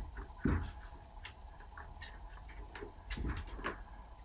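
Pipe slice cutter being turned around 15 mm copper pipe to cut it, giving a string of irregular light clicks and ticks, with a dull knock about half a second in.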